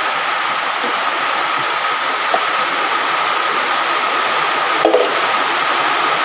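Hot oil sizzling steadily in the holes of an aluminium sostel frying pan as egg batter fries, with a brief clink of the metal spoon against the pan about five seconds in.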